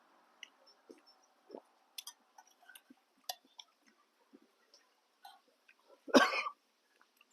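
Scattered small clicks and mouth noises of someone eating noodles, then a single loud cough about six seconds in.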